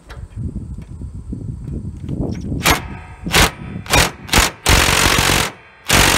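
DeWalt cordless impact driver hammering on a tight bolt under a riding mower's frame. It gives four short bursts, then a longer run, then runs on continuously near the end.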